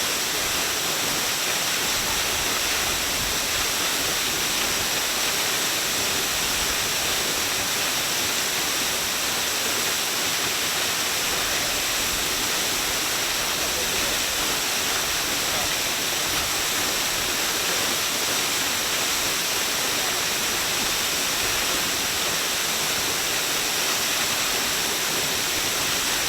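Minoh Falls waterfall: a steady, unchanging rush of falling water, heavy in the hiss.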